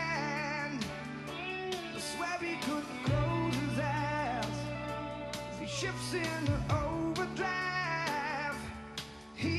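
Music: a song with a singer's voice over instrumental backing that includes guitar.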